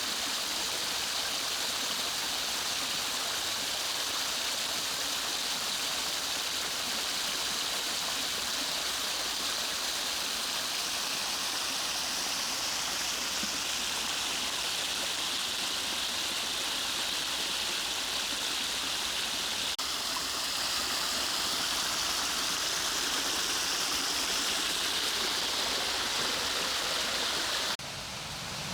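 Mountain stream water rushing steadily. About a second before the end it cuts abruptly to a quieter rush with more low rumble.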